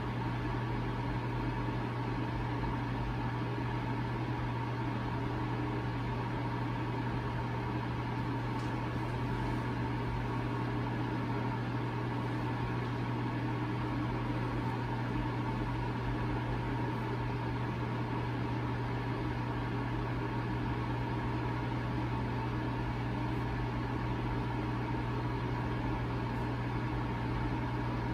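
Steady mechanical hum with a strong low drone and a faint higher whine, unchanging in level.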